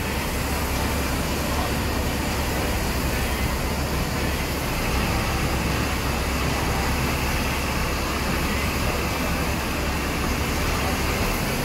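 Steady low rumble of a double-decker bus's engine under a continuous wash of street and traffic noise, heard from the open top deck.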